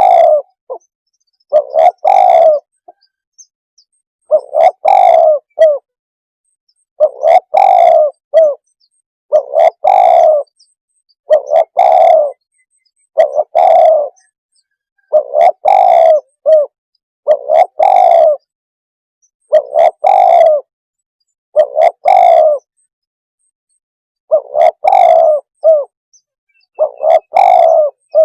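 Spotted dove cooing, a short phrase of a few notes repeated about every two seconds: a dove-luring call.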